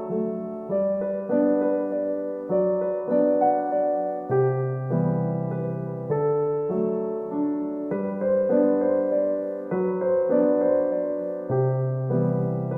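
Background music: a gentle solo piano piece, soft notes and chords played at an unhurried pace.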